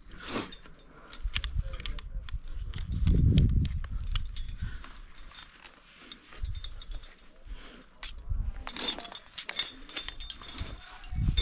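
Metal climbing gear, carabiners and quickdraws, clinking and rattling in scattered sharp clicks, with a thicker burst of clinks about nine seconds in. Low gusts of wind rumble on the microphone, heaviest about three seconds in.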